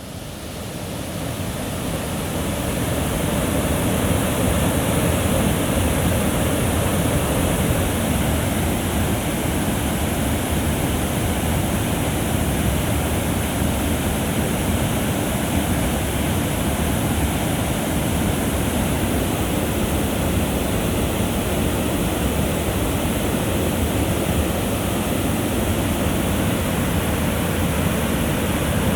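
Waterfall rushing: a loud, steady wash of falling water, very noisy. It swells up over the first few seconds, then holds level.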